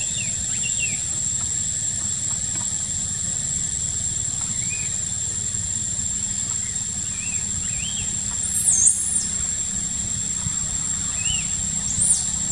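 Baby macaque squealing twice in short, high-pitched cries, the louder about two-thirds of the way through and another near the end, over soft chirps and a steady high whine.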